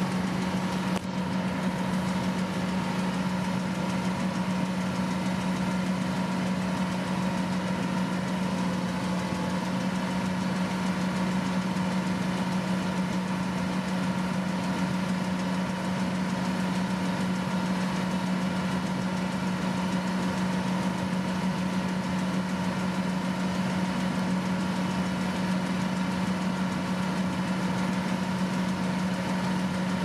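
Kubota DC-108X combine harvester's diesel engine running at a steady, unchanging hum while the machine cuts ripe rice.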